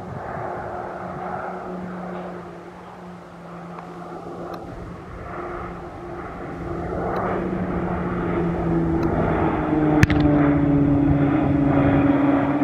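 PZL-130 Orlik turboprop aerobatic aircraft flying by: a steady engine drone whose pitch falls slowly as it grows louder toward the end. A sharp click about ten seconds in.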